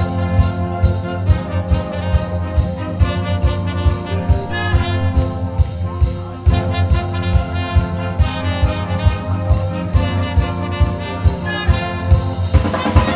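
Wind band playing live: brass and reeds holding chords over a drum kit keeping a steady beat.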